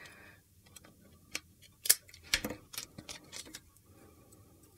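Scattered light clicks and taps of paper and a roll of adhesive tape being handled on a craft mat, irregular, with the sharpest click a little under two seconds in.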